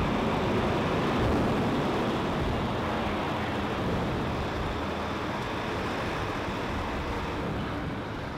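Steady low drone of a car ferry's engines heard on its enclosed car deck, easing off slightly near the end.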